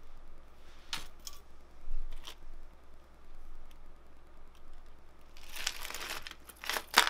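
Costume jewelry being picked through and untangled by hand: a few scattered metal clicks, a rustling of tangled chains and cords a little past halfway, and one sharp click near the end.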